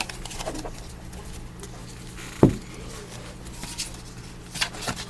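Football trading cards being handled and flipped through by hand: soft slides and light ticks, with one sharper tap about halfway through and two more near the end, over a steady low electrical hum.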